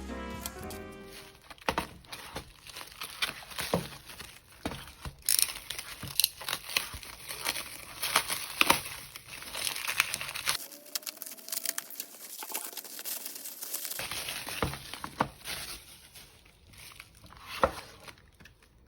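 Plastic and paper packaging crinkling and rustling as merchandise is unwrapped, with irregular small clicks and crackles.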